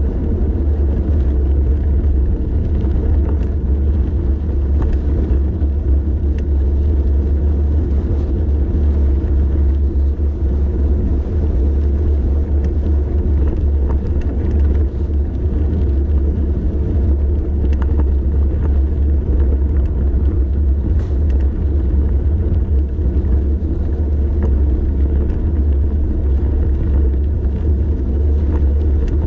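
Steady low rumble of wind buffeting the microphone and tyres rolling on the road as a bicycle descends, with a few faint ticks and rattles.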